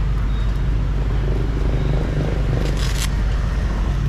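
Steady low rumble of city street traffic, with a brief scraping rustle about three seconds in.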